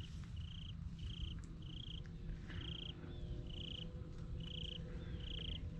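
Insect chirping: short, evenly spaced chirps at about two a second, some led by a small rising note, over a steady low rumble.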